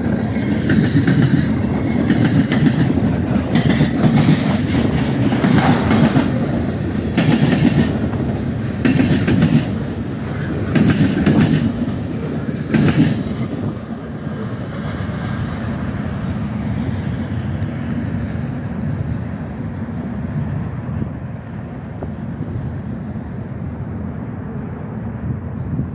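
Freight train cars rolling past close by, the wheels clacking over rail joints about once a second over a heavy rumble. About halfway through the clacks stop and the rumble fades as the end of the train moves away.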